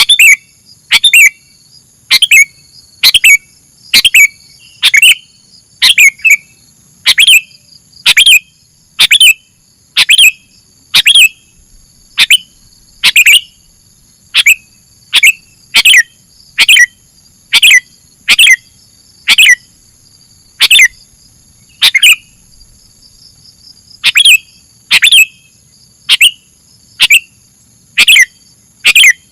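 Sooty-headed bulbuls (kutilang) giving loud, sharp chirps about once a second, often in pairs, with a brief pause about two thirds of the way through. A faint steady high-pitched whine runs underneath.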